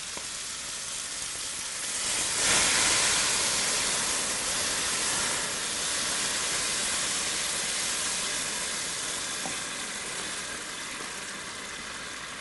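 Meat broth poured into a hot pot of fried rice and vermicelli, setting off loud sizzling that flares up about two seconds in and then slowly eases. A wooden spoon stirs the pot meanwhile.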